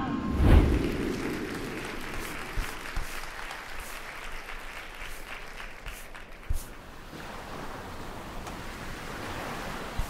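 A deep low thump about half a second in, then a crowd applauding, slowly fading.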